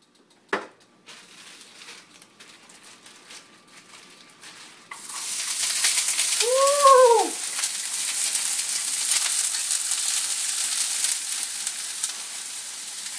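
Frozen bell peppers and onions hitting a hot oiled frying pan: the pan starts sizzling loudly all at once about five seconds in and keeps sizzling steadily. A short tone rises and falls in pitch about two seconds after the sizzle starts.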